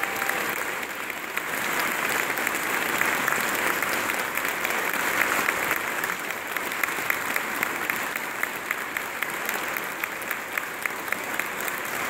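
Audience applauding steadily, with many single claps standing out sharply.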